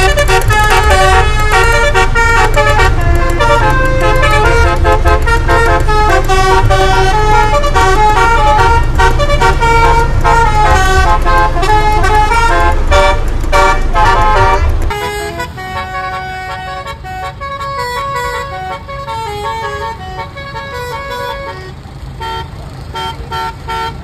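Bus telolet 'basuri' air horn playing a fast melody of many short multi-tone honks over a low engine rumble. About fifteen seconds in the sound drops sharply to a quieter level, the horn tune still going on.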